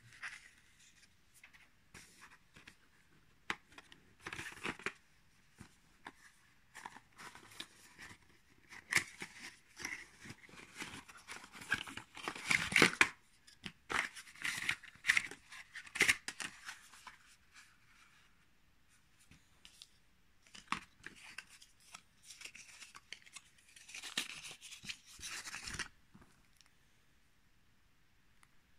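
Handling noise from unboxing a smartphone: irregular rustles, scrapes, tearing sounds and small clicks as the cardboard box, its tray, the phone and a charging cable are handled. The sounds come in bursts, busiest and loudest in the middle, with short quiet gaps.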